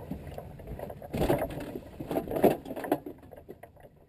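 Knocks and clatter of people moving about and handling gear in a small boat, loudest about a second in and again about two and a half seconds in, then fading away.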